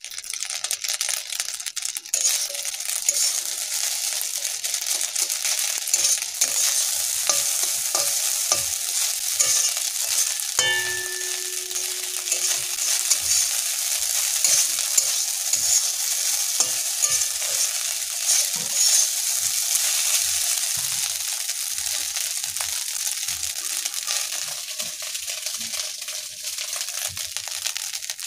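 Leftover rice being stir-fried in an iron karahi, sizzling steadily, while a steel spatula scrapes and knocks against the pan.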